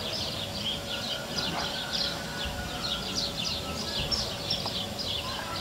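Small birds chirping: a steady chorus of short, high chirps, several a second, over low background noise.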